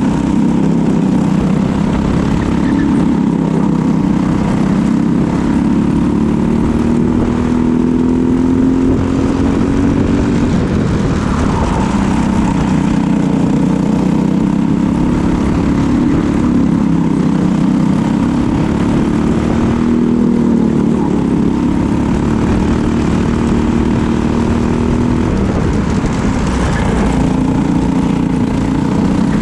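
Briggs & Stratton LO206 single-cylinder four-stroke kart engine running at racing speed. Its pitch repeatedly climbs under throttle and drops off as it lifts through the corners.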